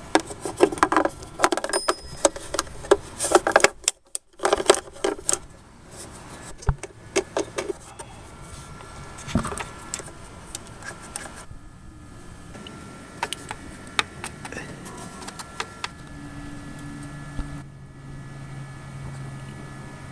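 A 1/4-inch flex-head ratchet with a 10 mm socket clicking and clinking against metal as a bolt is worked. The clicks come thick and fast for the first several seconds, then only now and then.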